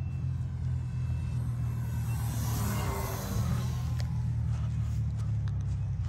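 Seagull Sport Cruiser RC model airplane flying past: its sound swells to a peak about halfway through and then fades, over a steady low rumble.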